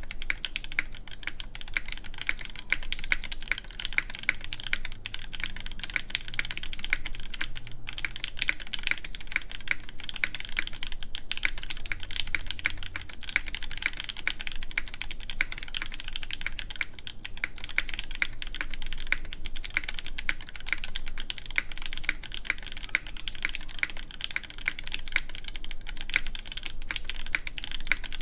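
Continuous fast typing on an iNN Studio Parabolica60 mechanical keyboard in top mount, with an aluminum plate, lubed Gateron Red Ink linear switches and GMK keycaps: a steady stream of keystroke clacks.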